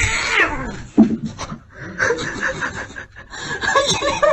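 A cat's yowl sliding down in pitch at the start, then a thump about a second in. After that a person laughs in quick, repeated snickers.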